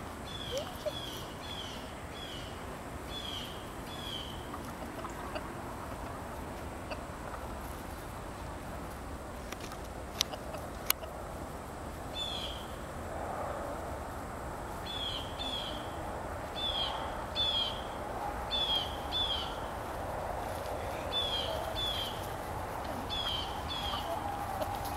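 High, short chirps from a bird, falling in pitch and mostly in pairs, come in runs with a pause in the middle. Under them is a soft low murmur from a flock of barred chickens that swells in the second half. Two sharp clicks come about ten seconds in.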